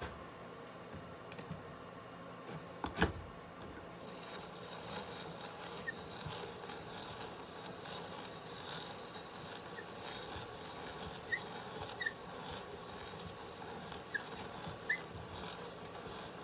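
Hand brace turning a Forstner bit to bore a hole in wood: a steady rasping of the cut with scattered short squeaks and clicks from the brace. A single sharp knock comes about three seconds in.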